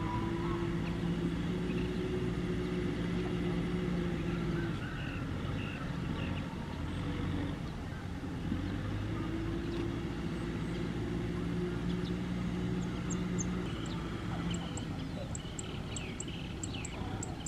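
Kubota M6040 tractor's four-cylinder diesel engine running steadily under load as it works a wet paddy field. The drone swells and eases a couple of times. Small birds chirp in short high notes near the end.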